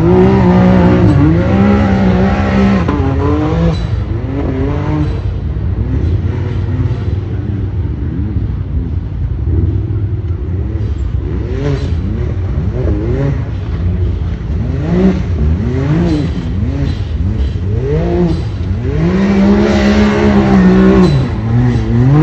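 Side-by-side UTV engine revving up and down again and again as it is driven up a steep rocky hill climb, the pitch swooping up and falling back. It is loudest in the first few seconds and again near the end.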